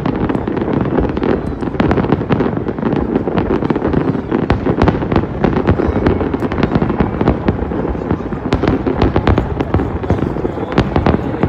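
Fireworks display: a dense barrage of sharp bangs and crackles, several a second, over a continuous rumble.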